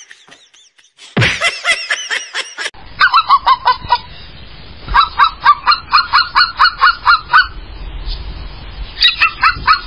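Runs of short honking calls, about three a second, in three bursts from about three seconds in. A shorter, louder cry comes just before the honking starts.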